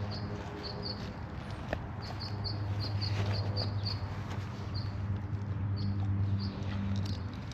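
A small bird chirping over and over in short, high chirps, a few a second, above a steady low hum.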